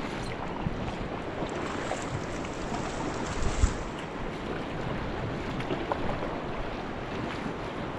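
Steady rush of river water around a drifting raft, with wind buffeting the microphone. A single dull bump about three and a half seconds in.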